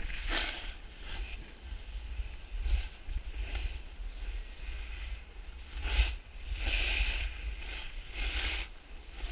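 Snowboard sliding down packed snow, its edge scraping the surface in a series of hissing swishes with the loudest about six seconds in. Wind rumbles on the microphone throughout.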